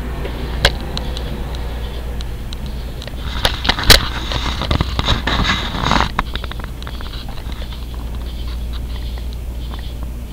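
A large moth hitting and fluttering against window glass. There is a sharp tap about half a second in, a cluster of louder hits around four seconds, then a quick run of fine ticks for about two seconds, all over a steady low hum.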